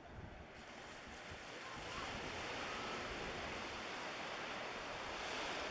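Small waves washing on the shore: a steady hiss of surf that swells about two seconds in, over a low rumble of wind on the microphone.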